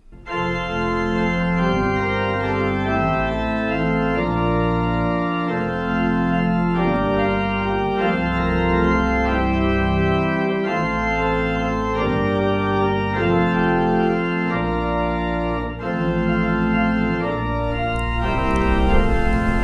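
Organ music: slow held chords changing every second or two over a deep, sustained bass line.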